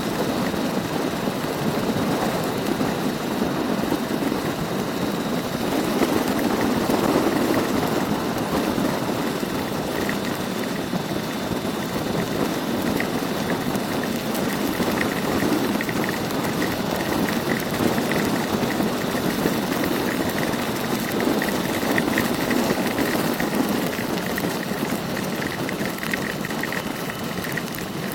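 Motorbike engine running on the move, under a steady rush of wind and heavy rain noise.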